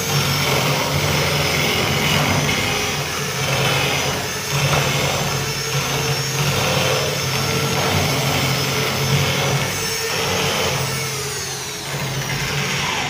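Electric drill running steadily, driving the cutter of a mortise-lock jig into the wooden edge of a door to cut the pocket for a lock.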